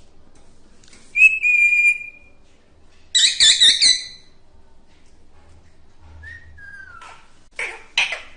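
A series of high whistles: a held steady note, then a quick warbling run, a falling glide, and two short loud calls near the end.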